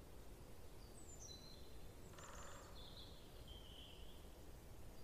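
Faint outdoor ambience with a steady low background hum. A few short, high bird chirps come between about one and four seconds in, and a brief rapid ticking comes about two seconds in.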